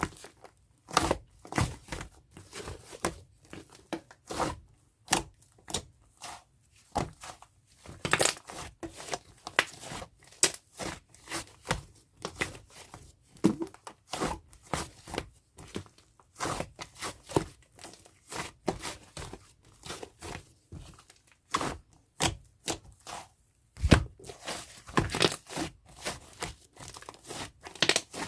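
Fluffy clay-mixed slime being squeezed, stretched and pressed by hand. It gives irregular soft crackles, pops and tearing sounds, a few a second, with short pauses between handfuls.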